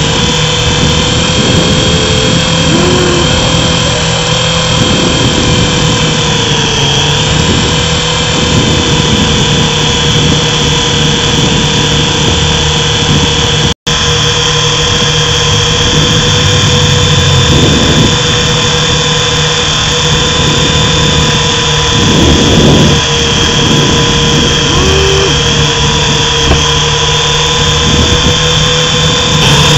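Small RC helicopter's motor and rotor running, heard close up through a mini camera mounted on the helicopter: a steady whine over a low hum, its pitch dipping slightly now and then. The sound drops out for an instant about halfway through.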